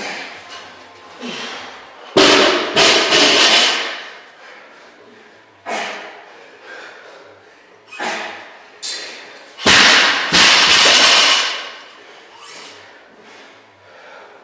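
Loaded barbells dropped onto a concrete floor: two heavy crashes, about two seconds in and again near ten seconds, each followed by the plates clattering and ringing for a second or so, with a few lighter knocks of bars set down in between.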